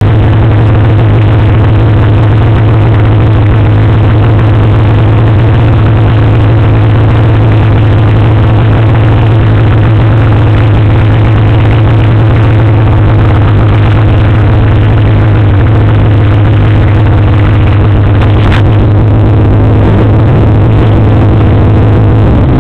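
A vehicle engine running loud and close to the microphone at a steady, unchanging pitch, with one brief click about eighteen seconds in.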